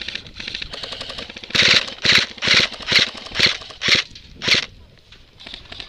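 Airsoft gun firing on full auto in seven short bursts, about two a second, each a rapid rattle of shots, with fainter rapid fire just before them.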